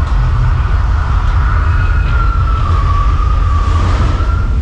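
Earthquake special-effects show in a soundstage: a heavy, continuous low rumble, with a long high tone that slides slowly down in pitch over it.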